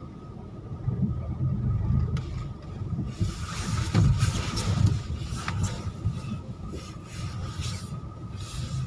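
Car driving slowly over a sandy dirt track, heard from inside the cabin: a low engine and road rumble, with a louder stretch of rattling, jolting noise about three to five seconds in.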